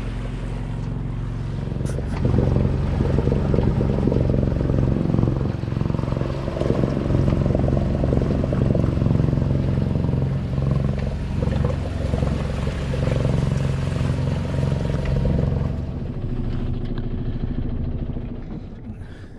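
Small sailboat's engine running steadily under way at motoring speed, a low even drone. It grows louder about two seconds in and eases off again near the end.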